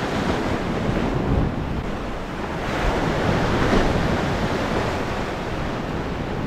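Ocean surf washing against a rocky shore, with wind on the microphone; the wash swells a little about three seconds in.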